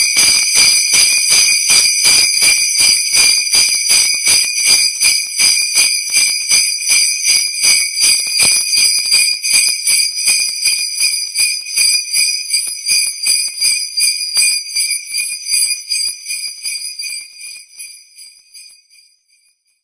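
Sleigh bells shaken in a steady, even rhythm, several shakes a second, ringing brightly, then fading out over the last few seconds.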